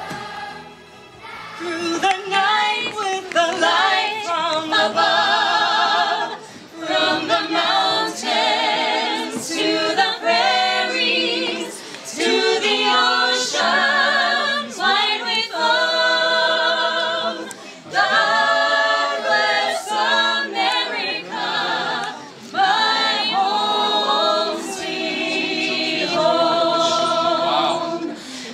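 A choir singing a cappella in layered harmony, with vibrato on held notes. The singing comes in phrases several seconds long, separated by short breaks.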